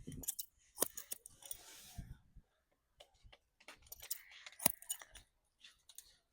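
Barber's scissors snipping hair in irregular clicks mixed with soft brushing hiss, with one sharper click about three-quarters of the way through.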